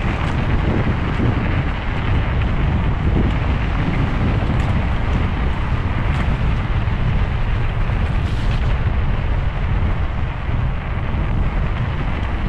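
Steady wind buffeting on the microphone of a moving electric mountain bike, mixed with the rush of its tyres rolling over a wet track.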